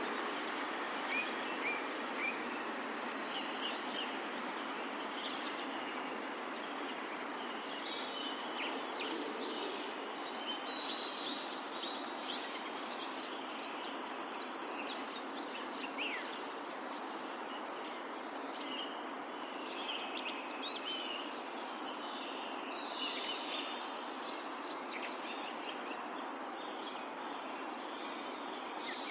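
Countryside ambience: a river's steady rushing in the background, with many distant birds chirping and whistling over it.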